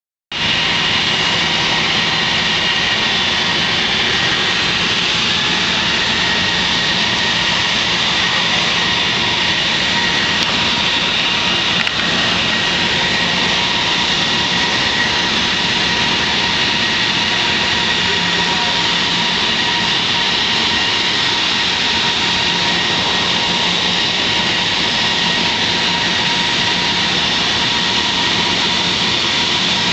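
Jet engines of a four-engined airliner running at taxi power: a steady, loud, high whine with several held tones over a rushing noise.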